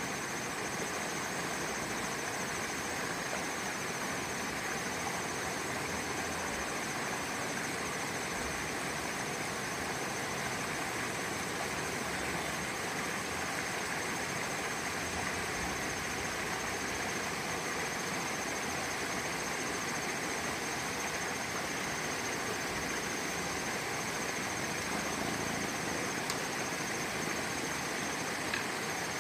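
Shallow river flowing over a rocky bed: a steady, even rushing of water.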